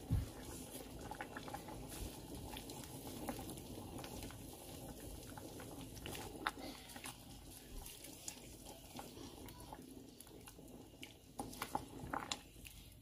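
A pot of soup simmering with a steady low bubbling, stirred with a wooden spatula that clicks and knocks lightly against the stainless steel pot, most of all near the end. There is a low thump right at the start.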